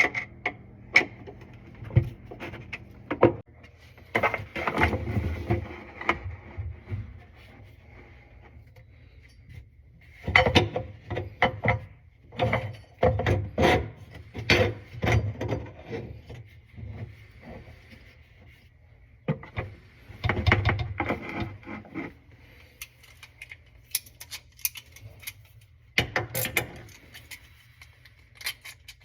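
Irregular bursts of knocking, clicking and rubbing, as of parts and tools being handled and fitted under a kitchen sink, with a faint steady hum beneath.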